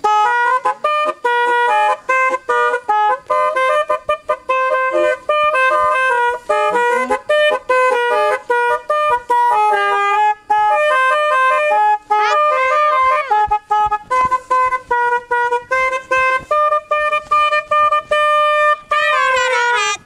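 Telolet snail-shaped musical air horns, driven by a DAV musical air horn module, playing a fast tune of short stepped notes, often in two or three voices at once. A couple of sliding notes come about twelve seconds in and near the end.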